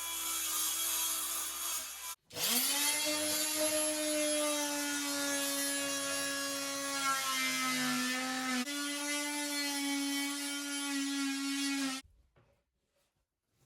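Budget 220-watt oscillating multi-tool cutting wood with a steady buzzing whine. It stops briefly about two seconds in, spins back up with a rising pitch, and cuts off near the end.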